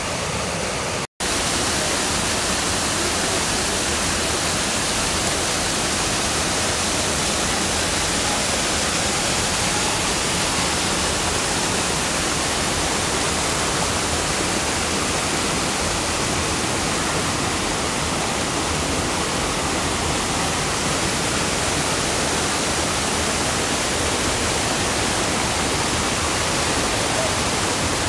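Waterfall: a steady rush of falling water, cut off by a momentary drop-out about a second in.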